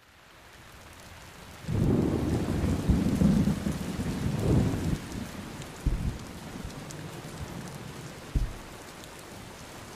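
Steady rain falling, fading in at the start, with a long low rumble of thunder from about two seconds in. Two short low thumps follow later.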